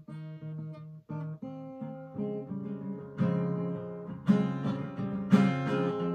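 Acoustic guitar being strummed, soft and broken at first, then louder and fuller from about three seconds in, with strong strokes about once a second.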